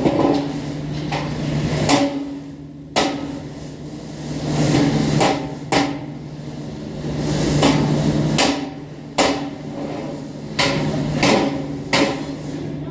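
Hammer striking metal, about nine irregularly spaced blows, between swelling stretches of scraping or rubbing, over a steady low hum.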